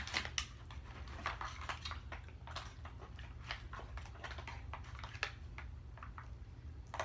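A person chewing ravioli with irregular wet mouth smacks and clicks, over a steady low hum.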